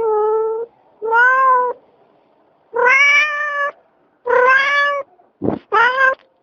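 A cat meowing repeatedly: five meows, each under a second long, with a short low thump just before the last one.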